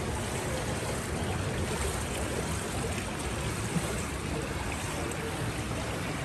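Steady wash of moving pool water sloshing and lapping close to the microphone, held at the water's surface.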